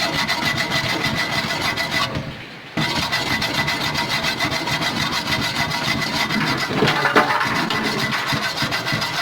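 Rapid, even rubbing strokes on the freshly brazed patch of a fridge evaporator, stopping for under a second about two seconds in.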